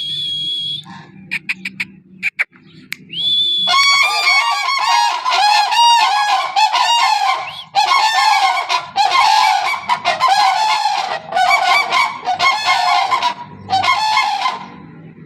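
A flock of cranes calling together, a dense chorus of many overlapping loud calls that begins about four seconds in and runs with a couple of short breaks until near the end. Before it come a short steady high note and a few clicks.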